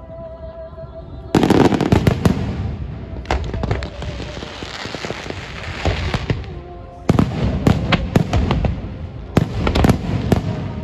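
Fireworks going off: a loud volley of rapid bangs and crackling starts suddenly about a second in, fades to a dense crackle, and a second volley of sharp bangs begins about seven seconds in.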